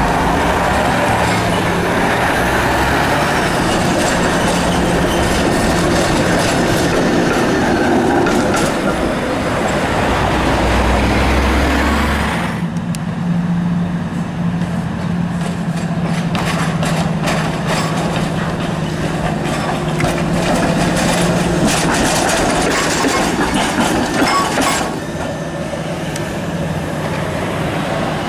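SEPTA Kawasaki light-rail streetcar running on street track amid road traffic, with a steady low hum and, in the middle stretch, many light clicks and rattles. The sound changes abruptly about twelve and a half and twenty-five seconds in, where the footage cuts between locations.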